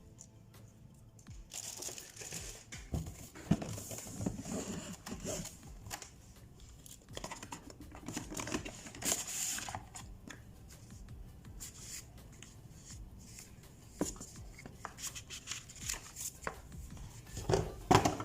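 Packaging being unwrapped by hand: crinkling and tearing of wrapping, with scattered clicks and knocks. There is a sharper knock about three and a half seconds in and a louder burst of handling near the end.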